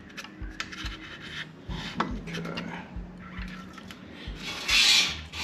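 A screwdriver wrapped in a paper towel scraping and rubbing around inside an engine crankcase, with small metallic clicks and an irregular scratching. A louder rasping scrape comes near the end.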